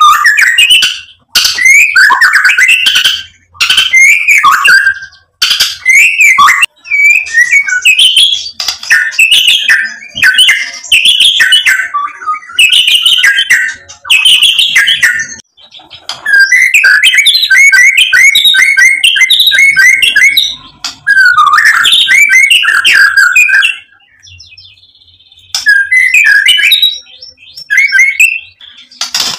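White-rumped shama singing loudly in a long run of varied whistled phrases and trills. A stretch of rapid repeated notes comes midway, and there is a short break near the end.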